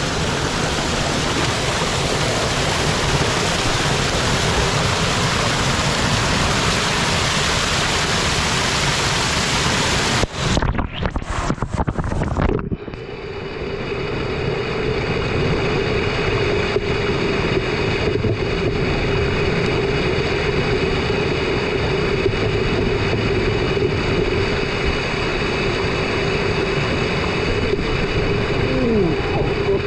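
Cold mountain stream water rushing steadily and loudly. About ten seconds in the sound breaks off briefly, then returns as a steadier rush with a low hum running under it.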